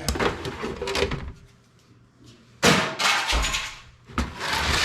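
Clattering and scraping of parts being handled and moved around, in three bursts, with a heavy thump about three and a half seconds in.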